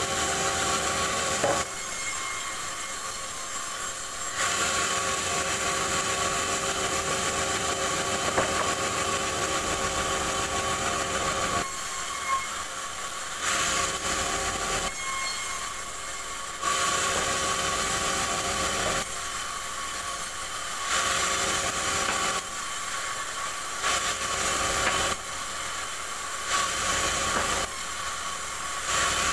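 Bandsaw mill cutting a rubberwood log: a steady machine sound with a loud, hissing rasp during each stretch of cutting, dropping back to the quieter run of the blade between stretches. This happens several times, every few seconds.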